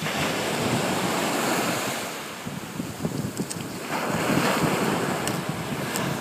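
Sea surf washing up the beach, swelling twice, with wind buffeting the microphone.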